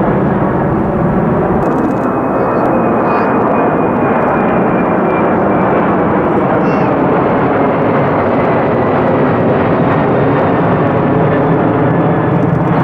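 Jet engines of a Boeing 747-400 at takeoff power as it climbs out overhead: a loud, steady rumbling noise. A faint high whine rises above it for a few seconds in the middle.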